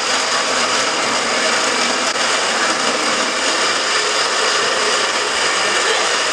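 Countertop blender running steadily at full speed, blending a thick smoothie of mixed ingredients.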